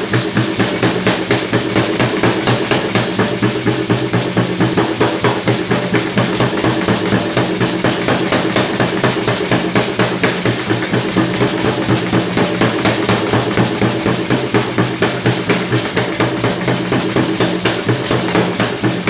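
Power hammer striking a red-hot steel bar in rapid, even blows as the tong reins are drawn out, with a steady hum underneath.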